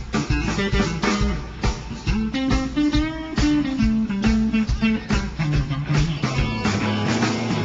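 Live rock band playing, with guitar lines to the fore over bass and drums; the held notes slide up and down in pitch.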